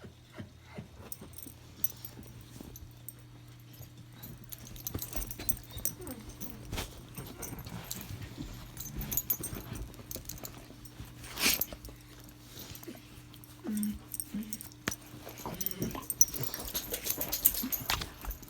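A pet dog whimpering and fussing, amid many short clicks and rustles, over a steady low hum.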